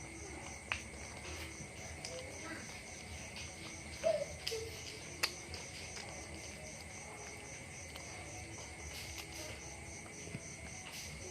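Insects chirping: a steady, high-pitched pulsing trill that repeats a few times a second, with a few sharp clicks and a brief lower squeak about four seconds in.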